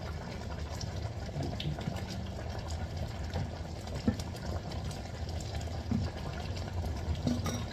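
Chicken sinigang broth simmering in a wok while it is stirred with two wooden spatulas, with a few soft knocks of wood against the pan.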